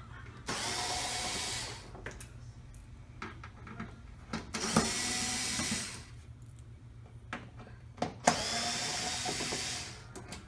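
Electric screwdriver running in three bursts of about a second and a half each, backing screws out of a TV's back panel cover, with small clicks in between.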